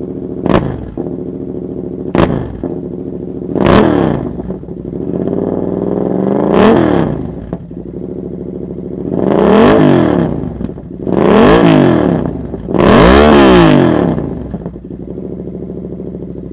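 Yamaha MT-07's parallel-twin engine through an SC Project full exhaust, revved by hand while stationary. Two quick throttle blips, then five longer revs that rise and fall, and a steady idle near the end. Ridiculously loud.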